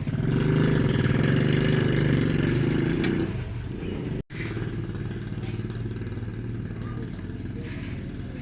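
A motorcycle engine running close by in the street: loud for the first three seconds, then lower and steady, with a brief dropout about four seconds in.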